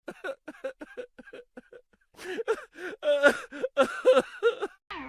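A high-pitched comic voice sound effect: a quick run of short giggling blips, about eight a second, then after a short pause a longer stretch of squeaky, chattering voice-like sounds.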